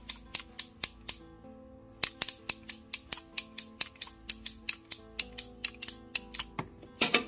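FORTUNEW J40 ratchet cable cutter being pumped down on a cable: sharp ratchet clicks about four a second as the teeth catch with each stroke, pausing briefly about a second in, with a louder snap near the end.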